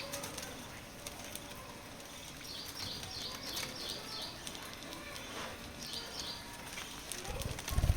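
Small pet parrots chirping: a quick run of about six high chirps a few seconds in and another short call later, over faint scratchy clicks. Near the end a brief low fluttering burst is the loudest sound.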